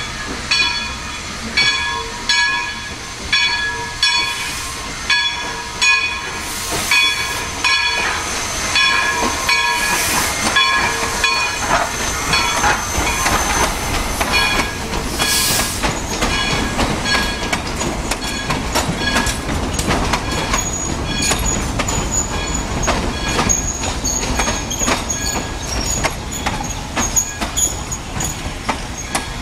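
Narrow-gauge steam train of East Broad Top 2-8-2 Mikado No. 15 and its wooden coaches passing. The locomotive's bell rings in a steady rhythm as it approaches, with sharp bursts of steam hiss as it comes by. Then the coaches rumble and clatter past over the rails, with a thin wheel squeal near the end.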